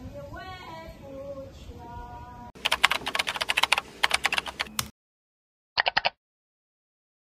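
Street ambience with people's voices, cut off abruptly by a fast run of keyboard-typing clicks lasting about two seconds, a sound effect for an animated end card. After a short silence comes a quick burst of three or four clicks.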